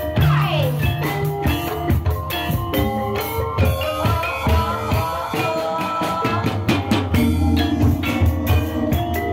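Live jaranan dangdut music: a steady, busy drum and percussion rhythm under a melody line, with a sliding note that falls near the start.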